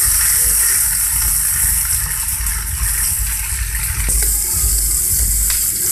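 Chopped garlic and leek sizzling in hot oil in a wok with a steady hiss, stirred with a wooden spatula; a single knock of the spatula near the end.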